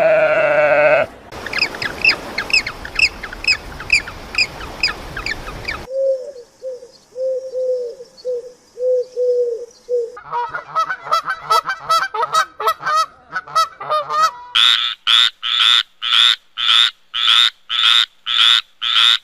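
A run of short animal-call clips cut one after another. First a brief bleat, then quick high chirps for about five seconds, then low croaks about twice a second, then a busy stretch of calls. It ends with evenly spaced loud honking calls, about two a second.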